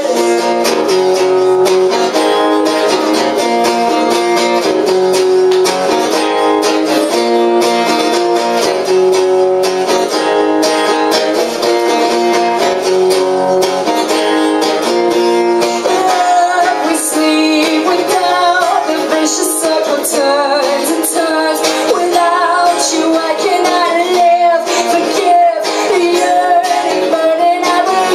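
Acoustic guitar strumming chords in a live performance, with a woman singing over it; her voice stands out most clearly from about halfway through.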